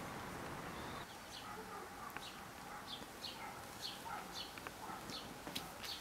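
Small birds chirping faintly: short, falling chirps repeated about twice a second, with softer lower notes and a few light clicks.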